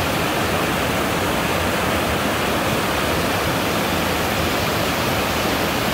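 River waterfalls and whitewater rapids rushing steadily over rocks, loud and even throughout.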